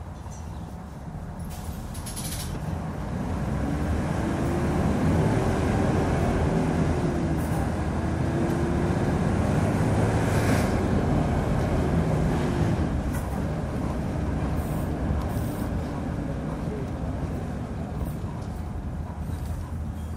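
2006 Hyundai Aero City 540 city bus diesel engine pulling under load. It grows louder and rises in pitch over the first few seconds, dips briefly about seven seconds in and climbs again, then falls away after about thirteen seconds.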